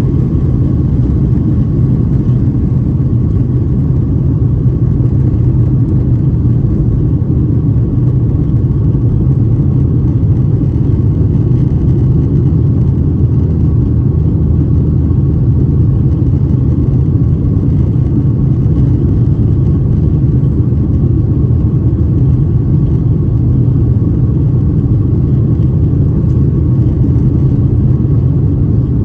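Steady, loud rumble of a Boeing 737-800's CFM56 jet engines and rushing air, heard inside the cabin, with a faint steady hum above it.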